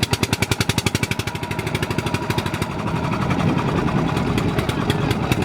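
Motorboat engine running with a fast, regular chugging beat that evens out into a steadier drone about three seconds in.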